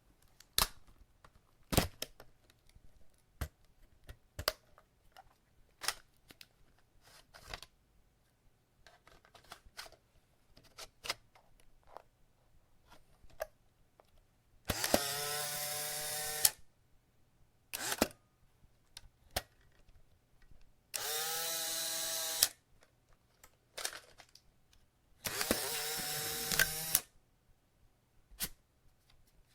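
Polaroid SX-70 Land Camera being worked: scattered sharp mechanical clicks and snaps, then three times a shutter click followed by the camera's motor whirring for about a second and a half, its pitch rising as it spins up, as it drives out the print.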